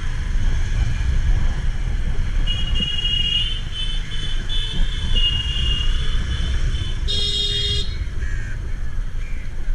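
Steady low rumble of a motorcycle riding through town traffic, with vehicle horns honking: a wavering horn from about two and a half to six seconds in, then a shorter, louder horn blast about seven seconds in.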